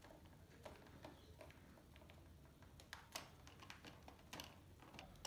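Faint, scattered clicks and taps of an African grey parrot's beak on a plastic toy piano.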